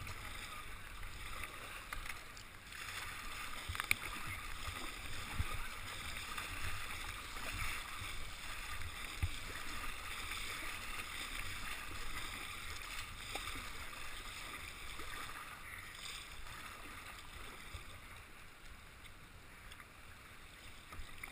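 Kayak paddling down a river: rushing, churning water around the plastic kayak's hull with the splash of paddle strokes. The water noise grows quieter over the last few seconds.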